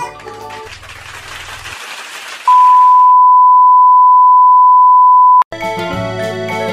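A hiss of television static fades out, then a loud, steady, high-pitched test-card tone, the bleep that goes with colour bars, holds for about three seconds. It cuts off suddenly as bright keyboard music starts near the end.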